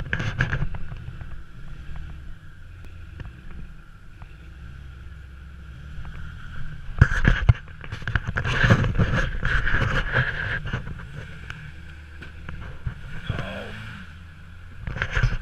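Lifted Jeep Cherokee's engine running at low revs as it crawls over rocks. There are louder bursts about seven seconds in and again between eight and a half and ten and a half seconds.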